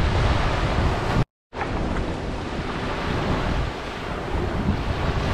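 Small waves washing onto a sandy beach, with wind rumbling on the microphone. The sound cuts out completely for a moment about a second in, then comes back.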